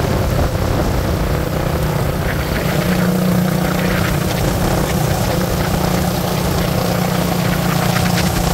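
Steady engine drone with a low hum that grows stronger about three seconds in.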